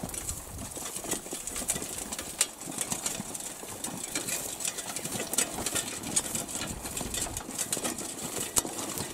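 A two-wheeled handcart with spoked wheels being pushed over a gravel dirt road, together with footsteps on the gravel: a steady crunching full of irregular small clicks and rattles.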